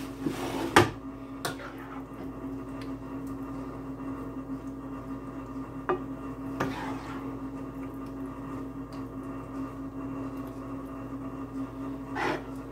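A serving spoon clanking and scraping against a skillet and a ceramic baking dish as meat sauce is scooped and spooned over pasta, with a sharp knock about a second in and a few lighter clicks and scrapes after. A steady hum runs underneath.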